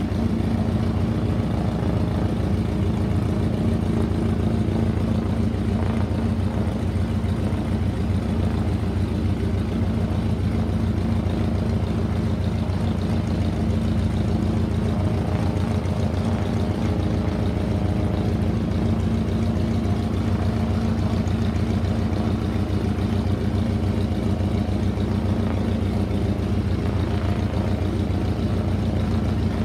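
Spartan Executive's Pratt & Whitney R-985 Wasp Junior nine-cylinder radial engine idling steadily, propeller turning.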